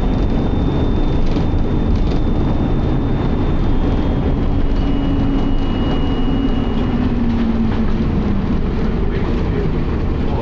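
Optare Solo single-deck bus running, heard from on board: a heavy drone of engine and road noise. Over it sits the thin, high-pitched whine of the bus's strange noise, which drops a little in pitch about halfway. Between about five and eight seconds in, a lower whine from the Allison automatic gearbox glides down in pitch.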